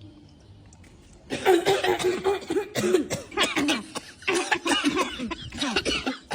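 Coughing: a run of rapid, loud coughs starts about a second in, then a second fit follows after a short pause near the middle.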